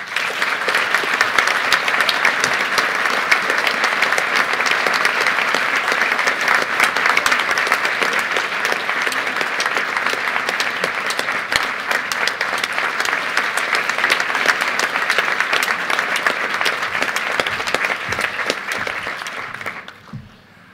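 Large audience applauding steadily, a dense patter of many hands clapping, which dies away near the end.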